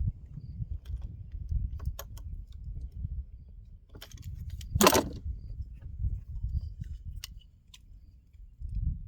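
Hand tools and small metal parts clinking and tapping while a carburetor is unbolted from a small engine, with a louder scrape about five seconds in, over a low rumble.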